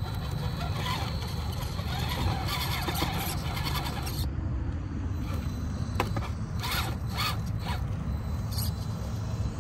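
Scale RC rock crawler working over rough ground: scraping and creaking from its tires and chassis over a steady low rumble, with a sharp click about six seconds in.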